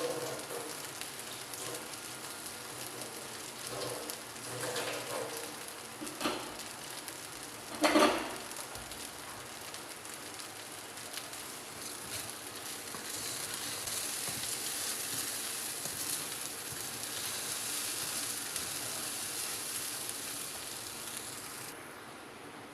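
Food sizzling as it fries in hot oil in a pan, a steady crackling hiss, with a few knocks of a utensil against the pan, the loudest about eight seconds in. The sizzle cuts off near the end.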